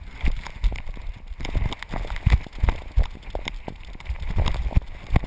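Irregular thumps and rattles of a GoPro camera strapped to a puppy, jostled as he moves about.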